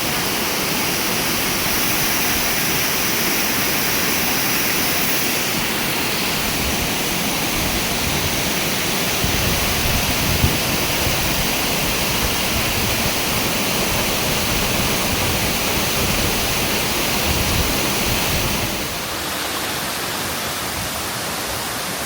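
Waterfall: a steady, loud rush of falling water. A deeper rumble runs under it for several seconds in the middle, and the rush eases slightly near the end.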